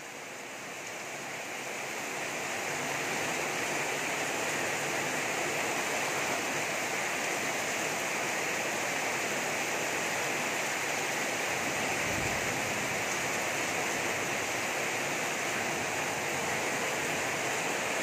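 Heavy tropical downpour: a steady rushing hiss of rain pouring onto the street and roofs, swelling over the first few seconds and then holding even.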